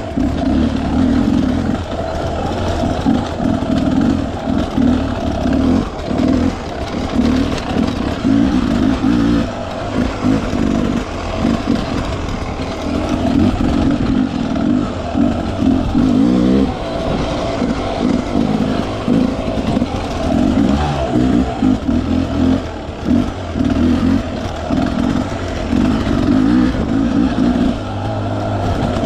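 Dirt bike engine revving up and falling back again and again under short, uneven bursts of throttle.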